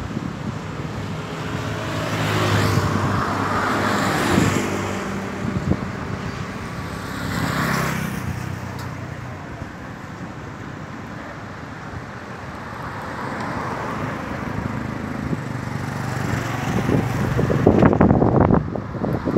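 Strong storm wind gusting in waves, buffeting the microphone, loudest near the end.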